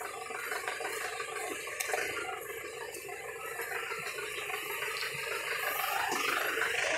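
An off-road jeep coming up a dirt track toward the listener, its engine faint under a steady rushing hiss and growing gradually louder over the last few seconds.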